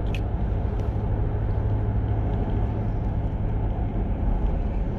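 Steady running noise of a vehicle driving along a paved road: an even engine hum under constant tyre and road noise.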